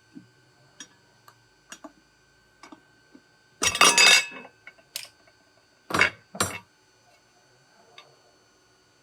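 Small metal parts and tools clinking and tapping, with a louder harsh burst lasting under a second about four seconds in, then two loud knocks in quick succession about two seconds later.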